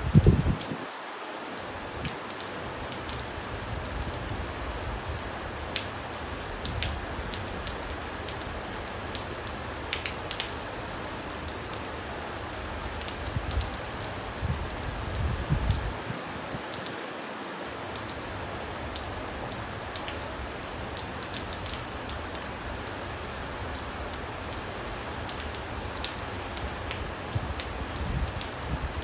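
Steady rain falling, an even hiss scattered with sharp ticks of single drops striking close by. A brief, louder low thump comes right at the start.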